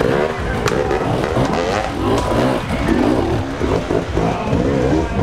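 Enduro dirt bike engines revving, several at once, their pitch rising and falling as riders work the throttle.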